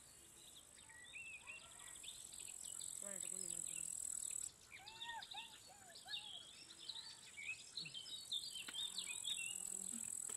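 Insects buzzing in a steady, high-pitched drone that stops about four and a half seconds in and starts again a few seconds later, with many short chirping calls around it.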